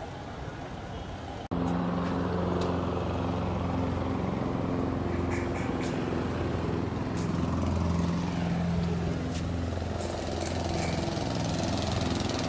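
An engine running steadily, cutting in suddenly about a second and a half in, its pitch wavering slightly.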